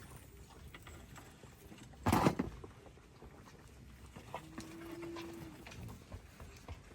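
Yaks grunting and snorting, with one loud, sharp snort about two seconds in.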